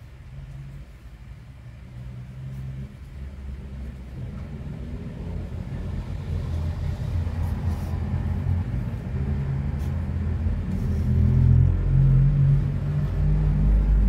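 Low engine rumble of a road vehicle, growing steadily louder, its pitch shifting a few times.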